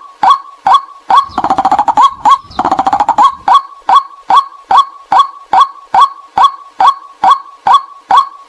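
White-breasted waterhen calls used as a hunter's lure: a sharp, loud 'kwak' repeated about two and a half times a second, broken twice by a fast rattling chatter, about a second in and again near three seconds.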